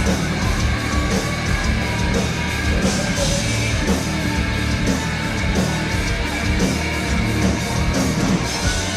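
Live rock band playing a loud, driving instrumental passage between sung verses, with a steady drum beat under the guitars and bass.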